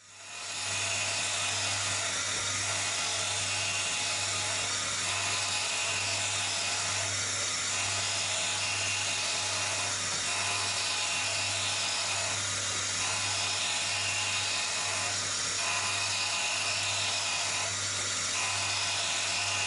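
Eagle Mk1 surface grinder running, its wheel dry-grinding the top of the magnetic chuck: a steady high whine and hiss over a low hum, swelling gently every few seconds as the table traverses. It fades in over the first second.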